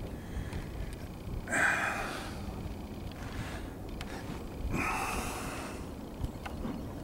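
Two breaths close to the microphone, about three seconds apart, over a low steady wind rumble.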